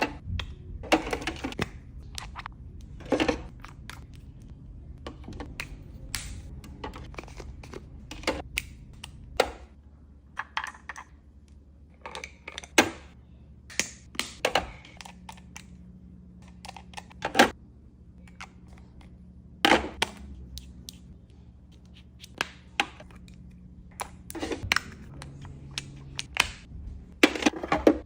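Skincare bottles and jars being handled and set down, making irregular clicks, taps and thunks about once a second, with a faint steady low hum in the background from about halfway through.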